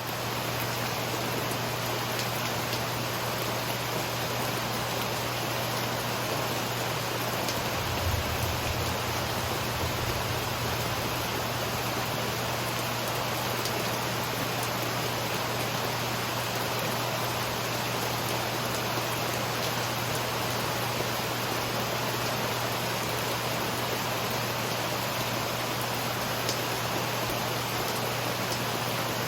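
Steady rain falling, an even hiss with no break, with a brief low rumble about eight seconds in.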